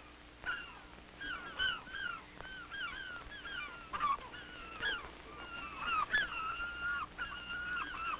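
Cats meowing over and over: a quick run of short rising-and-falling meows, some overlapping, with a few longer, held meows after the middle.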